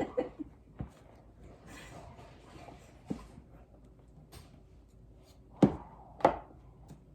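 A utensil stirring a thick, fluffy slime mixture of glue, shaving cream and baking soda in a bowl, quietly, with a few sharp knocks against the bowl, the two loudest close together near the end.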